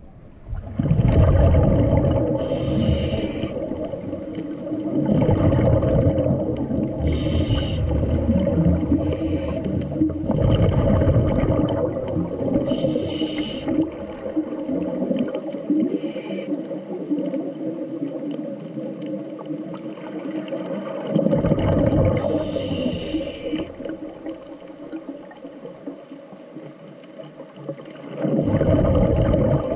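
A scuba diver breathing through a regulator underwater: short hissing inhales every few seconds, each followed by a longer low rumble and gurgle of exhaled bubbles. The breathing goes quieter for several seconds in the middle.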